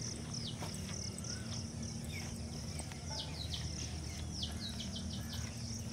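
Birds calling: a run of short, high whistled notes that each slide downward, repeated many times, over a steady high insect hiss and a low hum.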